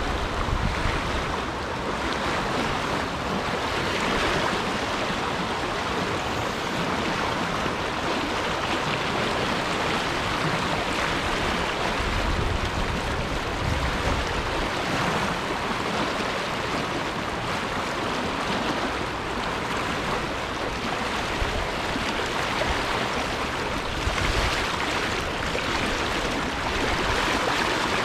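Fast-flowing river water rushing steadily, with a low wind rumble on the microphone at times.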